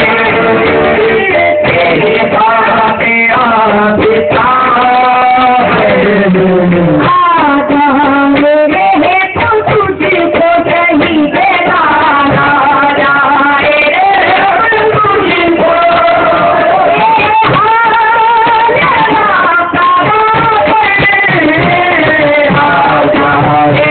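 Sufi devotional song sung by a male voice, with musical accompaniment. The melody moves in long, wavering, ornamented phrases.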